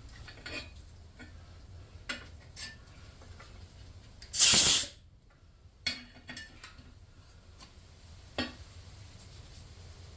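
Scattered light metal clinks and knocks of tools being handled, with one short, loud hiss of under a second about four and a half seconds in.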